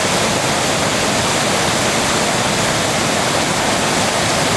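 Waterfall and river in full flow: a steady, loud rush of water.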